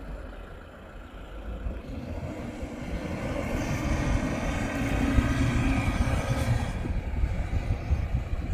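Toyota Fortuner SUV's engine working hard as it drives through soft sand dunes, a steady drone that swells louder about two seconds in, then eases a little near the end.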